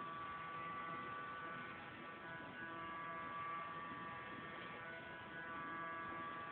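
Electric hair clippers running with a steady buzz as they shave hair down to the scalp, the tone shifting slightly partway through.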